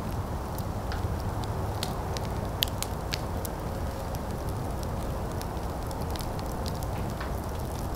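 Outdoor fire burning, crackling and popping at irregular intervals over a steady low rumble; the sharpest pop comes about two and a half seconds in.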